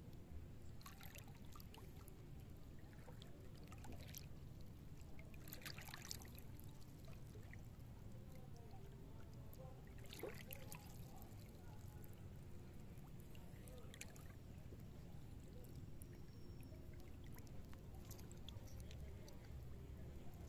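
Faint splashing and sloshing of shallow seawater every few seconds as someone wades through seagrass, over a low steady rumble.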